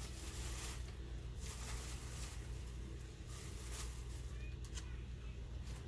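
Faint rustling and shuffling of packaging as someone rummages through a pile of card packs and mail, a few soft bursts spread across the seconds, over a low steady hum.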